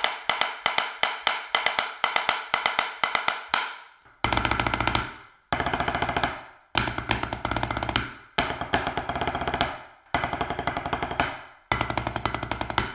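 Wooden drumsticks playing even single strokes on a Xymox Reserve practice pad, whose ball-bearing snare mechanism is left undamped for a snare-like sound. From about four seconds in come six short rolls of fast strokes, each just over a second long, played in turn on the Offworld Invader V3 pad and the Xymox pad.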